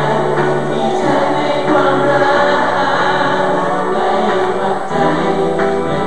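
Live pop concert music: a male singer singing into a handheld microphone over a band, with sustained bass notes underneath.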